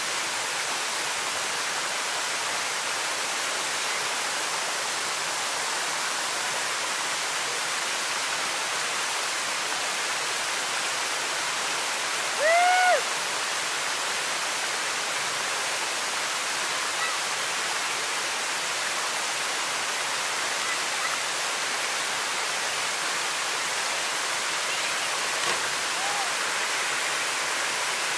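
Steady rushing of a waterfall plunging into a pool. About halfway through comes one short, loud shout, and a fainter call near the end.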